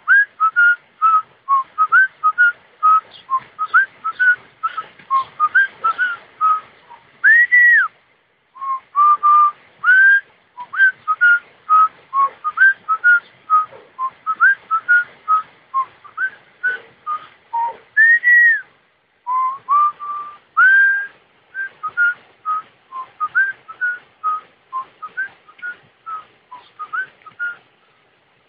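A person whistling a fast, lively melody: many short notes with pitch bends, a few longer held notes sliding up, and two brief pauses, about 8 and 19 seconds in.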